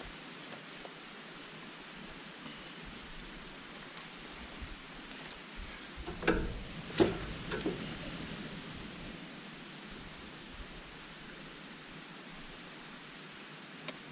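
Steady rush of water, with a constant high insect drone over it. A few soft thumps come about six to eight seconds in.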